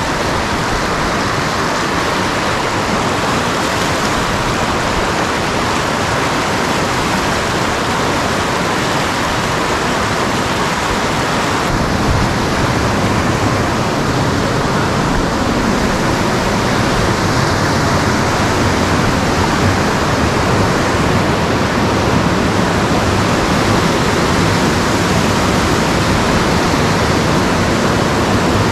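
Whitewater rapids rushing in a loud, steady wash of water noise, with a deeper rumble joining about twelve seconds in.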